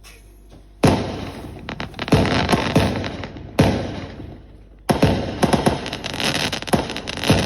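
Aerial fireworks bursting: a sudden loud bang about a second in, then more bangs at intervals with crackling between them, quickening into a rapid string of reports near the end.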